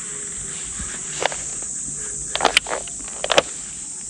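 Steady high-pitched chirring of insects, with a few short clicks and rustles from handling or footsteps near the middle and towards the end.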